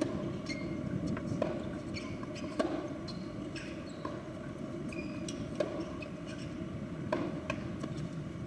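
Tennis ball knocks on racket and court, spaced irregularly about a second or so apart, with a few short high squeaks, over a steady low hum of court ambience.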